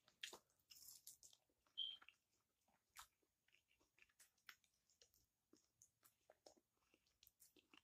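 Very faint chewing of a person eating: soft, irregular mouth clicks and small bites scattered throughout.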